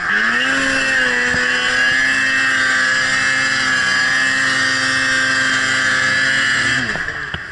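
Ski-Doo Summit snowmobile engine revving up, then held at steady high revs under load as the sled climbs through snow. Near the end the revs drop off as the throttle is released.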